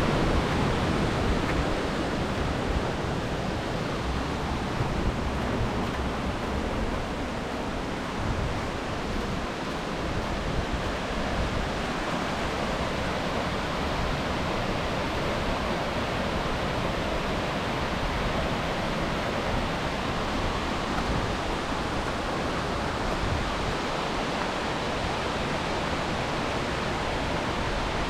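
Waterfall rushing steadily, a dense, even wash of water noise, a little louder in the first couple of seconds.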